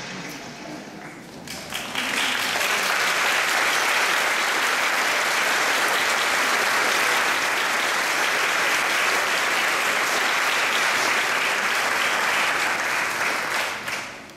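Large audience applauding steadily in a hall, starting about two seconds in and dying away near the end.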